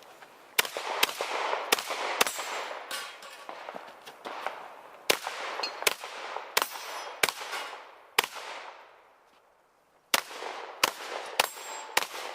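A string of about fourteen shotgun shots fired at a fast, uneven pace, some about half a second apart. Each ends in a short echoing tail, and there is a pause of nearly two seconds before the last four shots.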